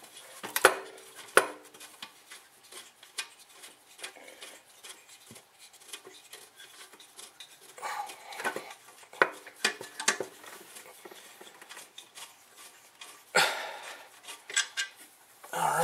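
Intake manifold of a VW Golf Mk4 2.0L being rocked loose and lifted off the engine by hand: scattered metallic knocks, clinks and scraping. There are sharp knocks about half a second and a second and a half in, and a louder clunk near the end.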